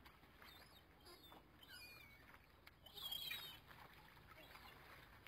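Faint bird chirps and short whistled calls, a few scattered through, the strongest about three seconds in.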